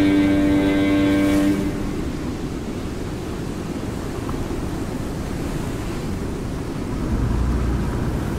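Sustained low musical tones that stop about a second and a half in, giving way to a low, rough rumbling noise with no clear pitch; a deeper hum swells in near the end.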